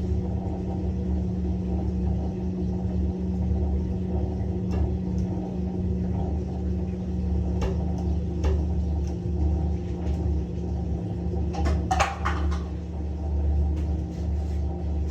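LG washing machine running with a steady, pulsing low hum, a few sharp clicks during the first half and a cluster of knocks about twelve seconds in.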